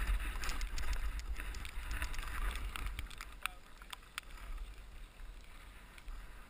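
Skis of a ski-bike hissing and swishing through deep powder snow, with wind rumbling on the microphone and scattered light knocks. It grows quieter about halfway through.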